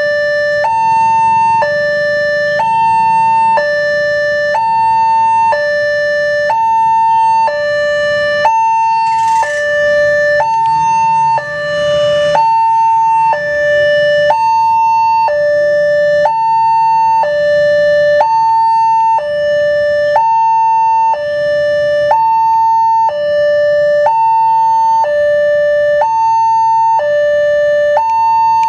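Railway level-crossing alarm sounding its two-tone electronic warning, a lower and a higher tone alternating about once a second, the signal that a train is approaching and the barriers are down. Low road-traffic noise runs underneath.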